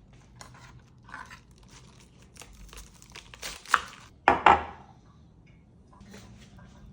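Handling noises: crinkling and rustling with scattered light clicks, then a sharp click and a louder, brief noisy burst a little past the middle.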